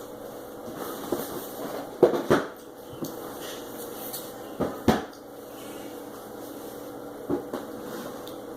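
Dishes and cutlery being set down and moved on a table: a few separate knocks, two quick pairs about two and five seconds in and a single one near the end.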